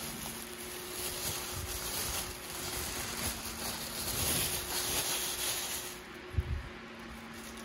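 Tissue paper rustling and crinkling as hands handle it, loudest about four seconds in. A dull thump comes near the end.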